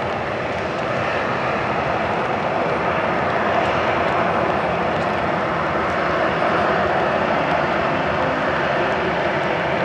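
Boeing 737 airliner's jet engines running as it rolls out along a wet runway after touchdown: a steady jet noise that swells slightly about a second in.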